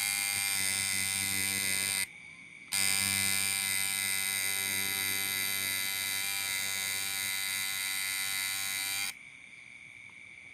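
Coil tattoo machine buzzing steadily. It stops briefly about two seconds in, starts again, and cuts off about nine seconds in.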